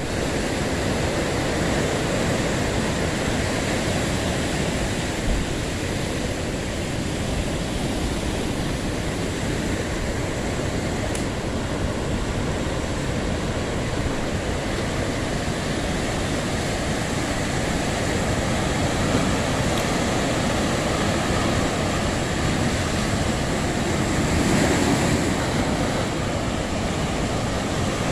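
Sea surf breaking on a rocky shore: a steady rush of waves that swells a little near the end.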